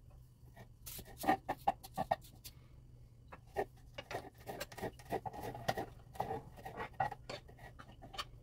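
Chef's knife slicing garlic cloves on a wooden cutting board: a string of irregular, quick knocks of the blade against the board.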